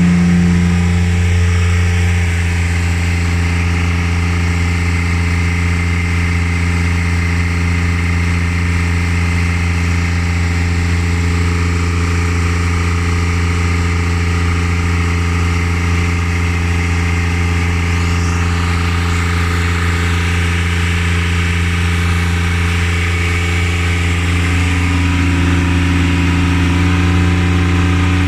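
An engine running steadily at a constant speed, with a deep even hum; a slightly higher tone joins in about 25 seconds in.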